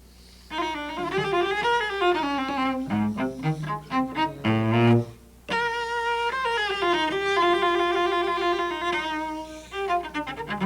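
Solo cello playing a short melodic passage in two phrases, with a brief break about five seconds in. The trill is played as a quick triplet on the beat.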